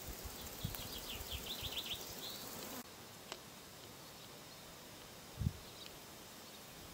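Outdoor garden ambience with a small songbird singing one quick run of short, high notes about a second in. The background drops quieter about three seconds in, and a single low thump, such as wind or handling on the microphone, comes near the end.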